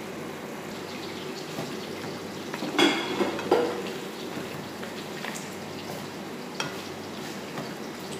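Wooden spatula stirring chicken and carrot strips in a frying pan, over a steady sizzle. It clatters loudly against the pan about three seconds in, then knocks lightly a few more times.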